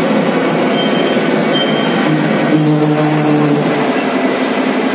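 Metal lathe running with its four-jaw chuck spinning an eccentric workpiece, giving a steady mechanical drone. About two seconds in, a humming tone with a brighter hiss joins for about a second and a half.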